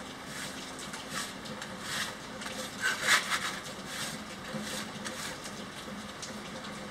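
Trowel scraping over wet styrofoam-and-cement mortar (styrocrete) as it is smeared and smoothed, a series of short gritty strokes, loudest about three seconds in.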